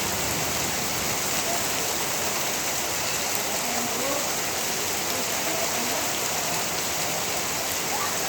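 Torrential rain pouring down steadily, a dense hiss of rain falling on surfaces.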